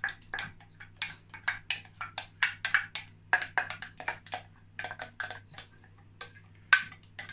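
A spatula scraping blended pepper and tomato out of a glass jug into a cooking pot: an uneven run of short scrapes and taps, a few each second, with one sharper knock near the end. A steady low hum lies underneath.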